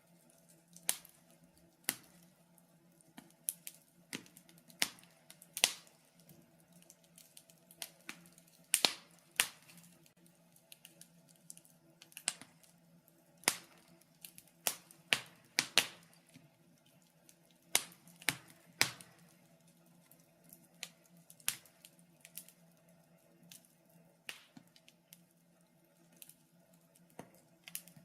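Wood fire crackling in a fireplace: irregular sharp pops and snaps, some much louder than others, coming in loose clusters over a faint steady low hum.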